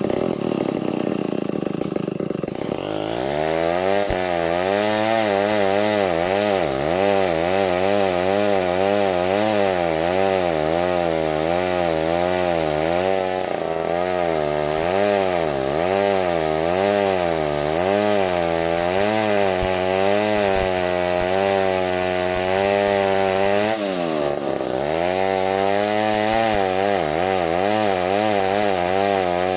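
Stihl 070 two-stroke chainsaw running under load while cutting wood, its engine pitch rising and falling about once a second as the chain bites. About 24 seconds in the engine drops low, bogging in the cut, then picks back up.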